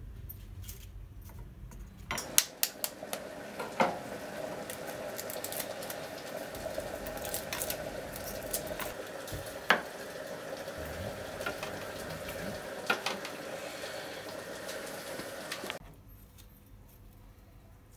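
A hard-boiled egg's shell being cracked and peeled by hand: scattered small sharp clicks and crackles over a steady hum, the sound dropping quieter near the end.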